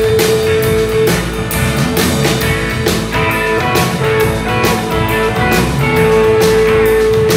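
Live psychedelic rock band playing, with electric guitars and a drum kit keeping a steady beat with cymbal hits. A long held note sounds over it at the start and again near the end.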